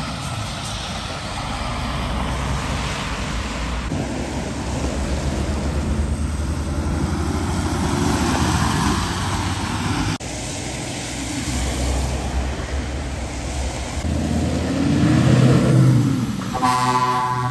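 Heavy truck tractor units driving past one after another, their diesel engines rising as each one passes, with tyres hissing on the wet road. Near the end a passing truck sounds a horn, one steady blast of about a second and a half.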